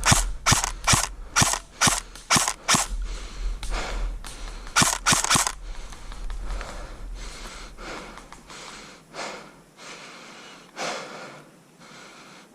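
Airsoft electric rifle (AEG) firing single shots as sharp snapping pops, about two a second for the first three seconds, then three quick shots around five seconds in. Fainter, more distant shots follow.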